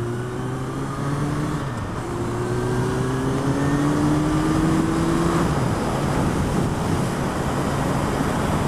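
Motorcycle engine accelerating through the gears. Its note rises, drops at an upshift about two seconds in, rises again and drops at a second upshift a little past halfway, then holds fairly steady. A steady rush of wind and road noise runs underneath.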